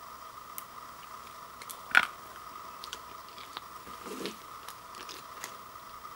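Dry Maruchan Gold ramen noodles snapped between the fingers: one sharp crack about two seconds in and a few fainter ticks. Around four seconds in there is a short crinkle as the plastic and foil seasoning sachets are handled.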